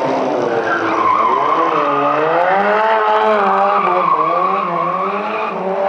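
Ford Sierra RS Cosworth rally car drifting on tarmac. Its tyres squeal in a steady high screech while the engine's revs rise and fall as the throttle is worked through the slide.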